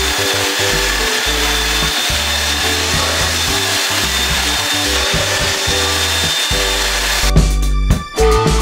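Handheld belt sander running steadily, sanding padauk and cedar wood strips on a kayak deck, over background music. The sander stops near the end, leaving the music with a drum beat.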